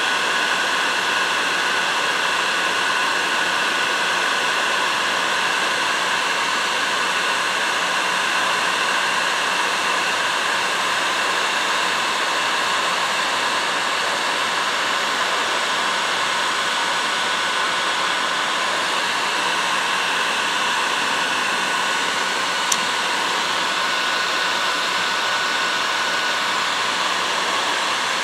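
Electric heat gun blowing steadily, an even rushing hiss with a faint steady whine, as it shrinks heat-shrink tubing onto a plier handle. One small click about three-quarters of the way through.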